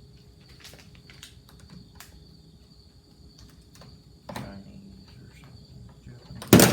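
Scattered clicks and knocks of an aftermarket recoil starter housing being tried on a Stihl 290 chainsaw, ending in one loud clack near the end; the part does not fit. A steady high chirring of crickets goes on underneath.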